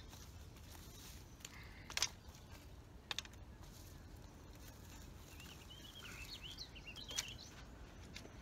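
A few sharp snaps and knocks of twigs and sticks being pulled from a driftwood and debris pile, the loudest about two seconds in. A bird chirps faintly between about six and seven seconds in.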